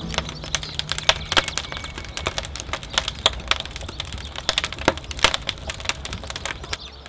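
Wood fire crackling inside a brick wood-fired oven: irregular sharp snaps and pops of burning split logs over a low steady rumble.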